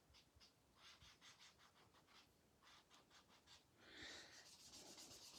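Faint quick dabs of a foam ink dauber on cardstock, several a second, turning into a soft continuous rubbing about four seconds in.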